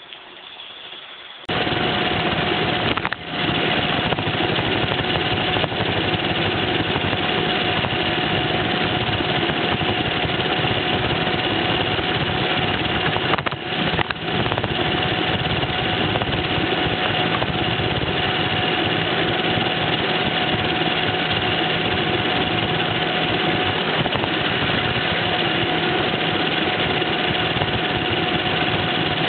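Roomba robot vacuum switching on about a second and a half in, then running with a steady motor and fan whine that dips briefly twice.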